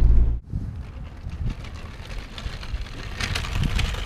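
Motorhome cab noise, a steady engine and road rumble, cuts off suddenly less than half a second in. It gives way to quieter outdoor street ambience with wind rumbling unevenly on the microphone.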